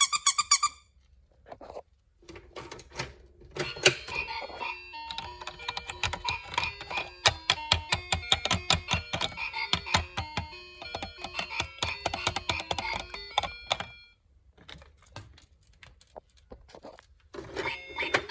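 A light electronic tune: a melody of short stepped notes over quick clicking beats, pausing briefly near the end.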